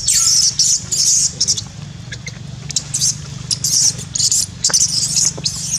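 Baby macaque crying in rapid, shrill squeals, several a second, over a low steady hum.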